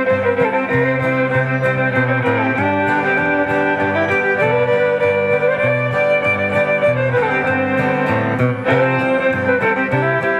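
Cajun band playing an instrumental break without singing: a bowed fiddle carries the melody over a strummed acoustic guitar, with a steady rhythm of low notes.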